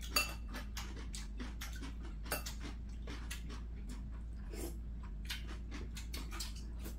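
Two people eating at a table: chewing and small mouth clicks, with light taps of chopsticks on food and bowls. The clicks are short and irregular, one or two a second, with a slightly sharper tap just after the start and another about two seconds in.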